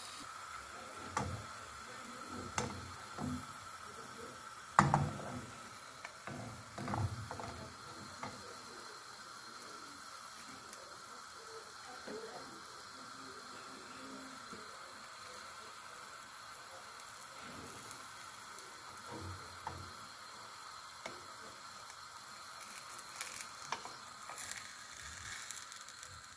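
Vegetable batter frying in an oiled pan: a faint, steady sizzle, with a few sharp knocks in the first several seconds.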